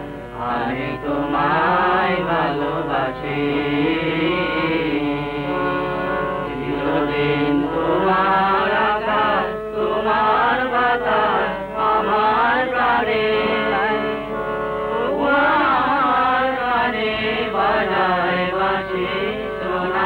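Music with a voice singing long, wavering, sliding notes.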